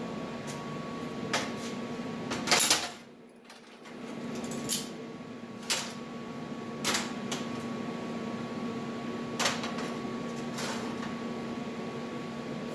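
A steady electrical hum with several scattered knocks and clinks of hard objects being handled. The loudest knocks come together about two and a half seconds in, and the hum drops out for about a second just after them.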